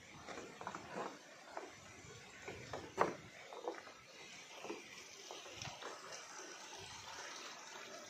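Irregular light knocks and taps, one louder knock about three seconds in, over a faint steady hiss: footsteps and camera handling on a wooden walkway.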